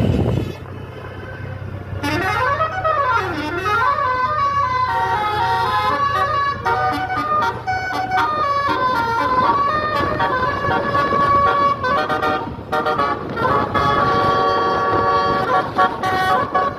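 Tour bus's telolet basuri musical air horn: a siren-like rising-and-falling sweep about two seconds in, then a tune of held, stepping notes. The bus engine hums low underneath.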